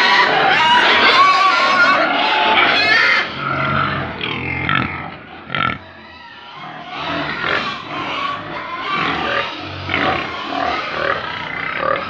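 A pen of pigs squealing and grunting, a dense loud chorus for the first few seconds, then quieter with separate low grunts and a single knock about halfway through.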